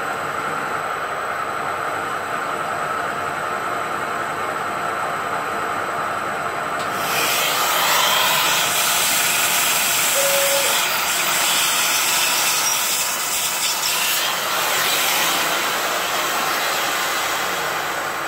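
CNC milling machine running steadily as it drills into an induction-hardened lathe bedway. About seven seconds in, a vacuum cleaner starts with a loud, sudden hiss as its hose sucks the chips away from the drill, and it runs on for most of the rest.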